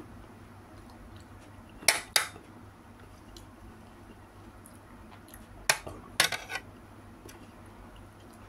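A metal spoon clinking against a soup bowl: two sharp clinks about two seconds in, then another clink and a short rattle of the spoon in the bowl near six seconds.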